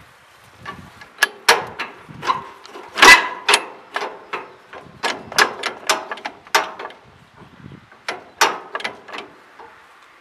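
An irregular series of sharp clicks and knocks, some close together, the loudest about three seconds in.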